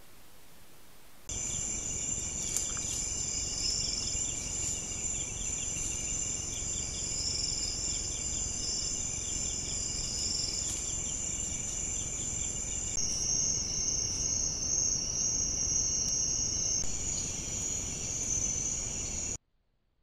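Night-time forest insect chorus: several steady, high-pitched trills layered over a low hiss. It starts abruptly about a second in, the pitch mix shifts twice, and it cuts off suddenly near the end.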